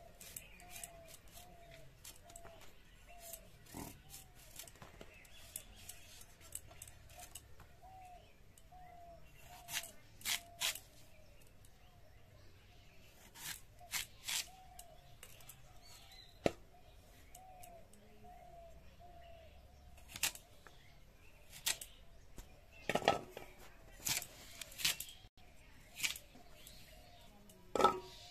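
Giant taro (mankochu) being cut on a boti, its fixed curved iron blade: scattered crisp cutting strokes and light knocks, clustered in short runs, mostly in the second half.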